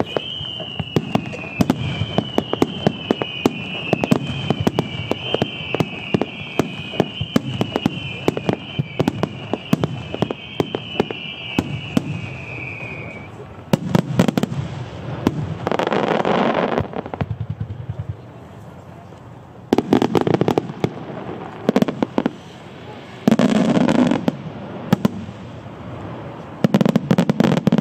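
Starmine fireworks going off in quick succession: a rapid string of sharp bursts and reports, with a high whistle that wavers and slides down in pitch through the first half. In the second half come several loud spells of dense crackling from crackling stars.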